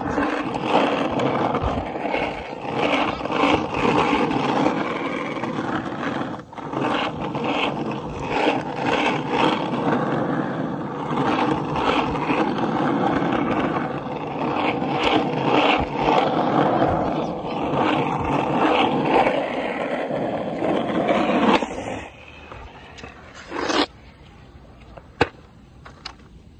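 Skateboard wheels rolling fast over rough asphalt: a loud, steady rumble. About 22 seconds in the rumble stops abruptly and the sound goes much quieter, with a few light knocks near the end.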